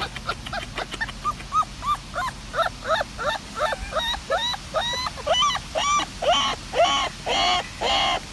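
A puppy whimpering in a rapid run of short yelping whines, about two or three a second, each rising and falling in pitch and growing louder towards the end.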